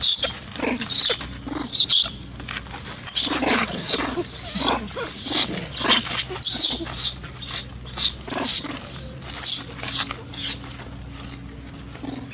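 Baby long-tailed macaque screaming in distress: a rapid run of shrill, high-pitched cries, about two to three a second, that stop near the end.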